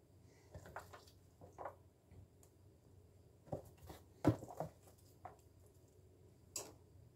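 Soft, irregular pats and rustles of sliced onion, fennel and artichoke hearts dropping from a plastic container onto focaccia dough and being spread by hand, with a louder knock just past four seconds in.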